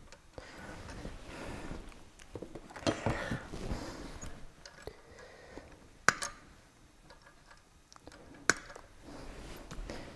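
Cotter pin being fitted and its legs bent over on a sterndrive shift linkage pin: faint metal scraping and rustling, with two sharp metallic clicks about six seconds in and again two and a half seconds later.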